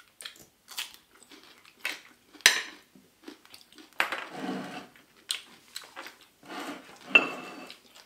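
Cutlery clinking and scraping on plates in a scattering of short clinks, the sharpest about two and a half seconds in.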